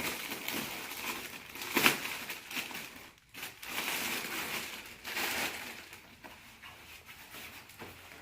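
Packaging crinkling and rustling as a parcel is unwrapped by hand, with a sharp crackle about two seconds in. The rustling quiets in the last couple of seconds.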